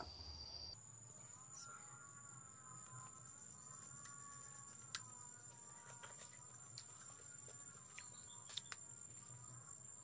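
Faint insects: a steady high-pitched whine starting about a second in, with a lower wavering tone beneath it and a few soft clicks.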